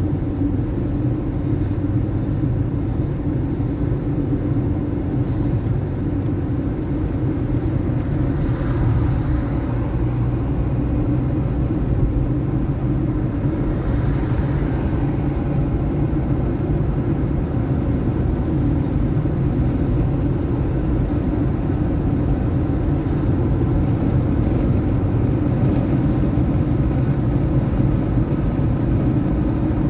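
A car driving through city traffic: a steady engine and tyre rumble, with a couple of brief swells from passing traffic about a third and halfway through.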